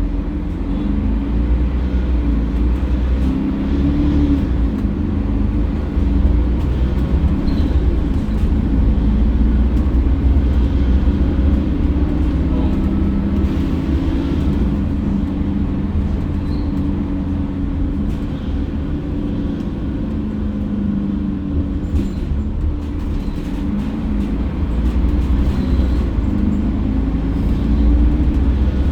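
Mercedes-Benz OC500LE city bus under way, its diesel engine and drivetrain droning steadily with the engine note shifting slightly in pitch.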